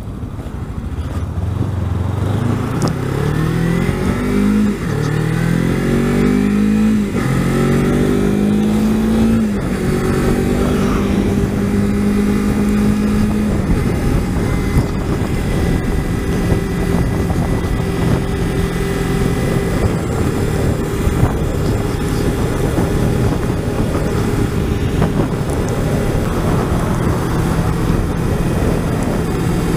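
Kawasaki Ninja 300's parallel-twin engine pulling away and accelerating through the gears: the note rises and drops back at each of several upshifts over the first ten seconds or so, then holds steady while cruising. Wind noise on the microphone runs underneath.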